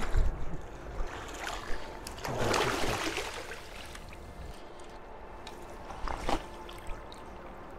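A hooked trout splashing at the surface as it is played in to the net, over the steady rush of river water. There is a longer splash of several seconds near the middle and a short, sharp one near the end.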